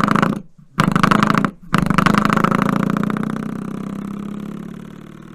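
Coiled spring door stop flicked, twanging with a buzzy, wobbling boing. A twang carries over at the start and stops, a second flick comes about a second in, and a third near two seconds rings on and dies away slowly.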